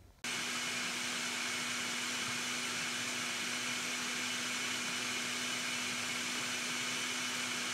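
Oster countertop blender running steadily at speed, puréeing boiled tomatoes and serrano chiles into a smooth salsa: an even whirring motor hum. It cuts in a moment after the start and stops abruptly at the end.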